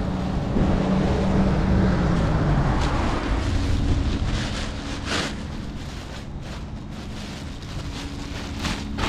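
Vehicle engine running with wind buffeting the microphone. The engine note drops over the first few seconds, then the engine idles more quietly, with a few short noisy bursts over it.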